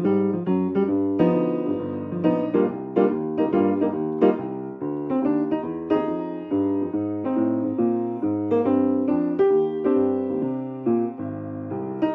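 Solo piano being played: a steady run of struck notes and chords, each ringing and fading into the next.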